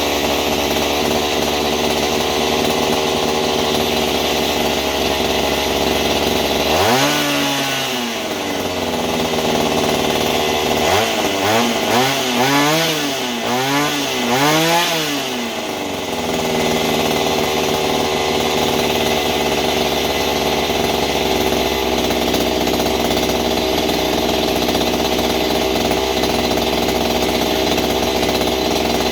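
Mantis mini tiller's small engine running steadily, revved up and back down once about seven seconds in, then blipped four times in quick succession before settling back to a steady run. It is running on a freshly rebuilt carburetor and will not settle into a proper idle.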